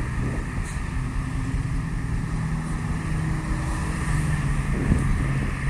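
Highway traffic going by, a steady drone of engines and tyre noise with cars and a semi-truck passing.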